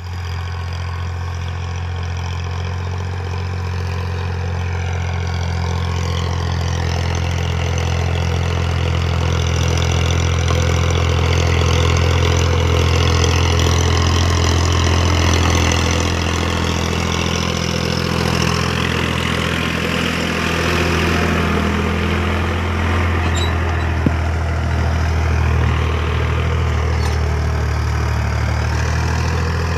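Tractor diesel engine running steadily under load as it pulls a disc plough through the soil, a constant low drone. It grows louder as the tractor comes close, around the middle.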